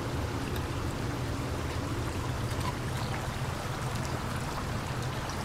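Hot oil in a commercial deep fryer sizzling and bubbling steadily as batter-coated chicken pieces fry, with a steady low hum underneath.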